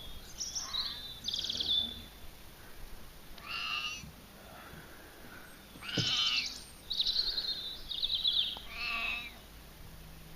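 An animal calling repeatedly: about eight short, high-pitched cries in irregular bursts.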